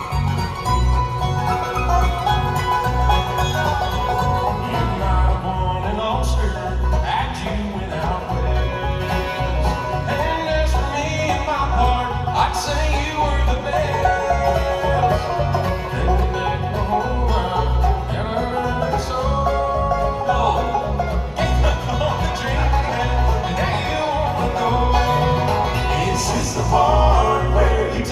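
Live bluegrass band playing a tune, with banjo and guitar picking over a steady bass beat.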